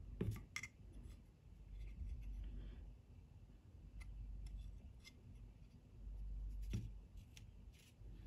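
Faint handling noise: a few sharp light clicks and taps as an Arduino Uno R4 WiFi circuit board and its clear plastic mounting bracket are handled and set down on a table. The clicks come in a pair right at the start, one about halfway, and a small cluster near the end, with soft rubbing between.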